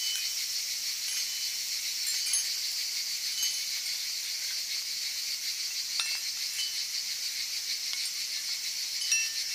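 Steady high-pitched chorus of insects, with a few brief high notes scattered over it and a sharp click about six seconds in.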